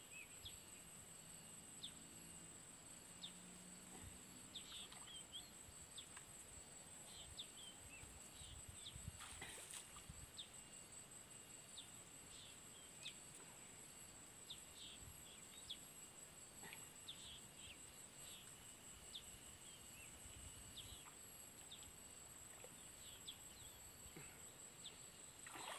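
Near silence: faint rural ambience with scattered short bird chirps over a steady high insect buzz.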